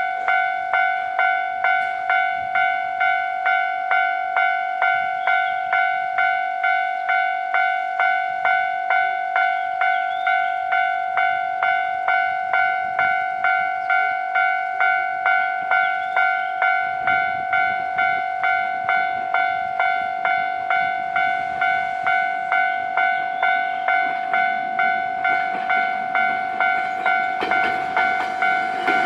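Japanese railway level-crossing warning bell ringing, a steady electronic ding-ding repeating about twice a second, signalling that a train is coming. Over the last few seconds the rumble of an approaching train rises beneath it.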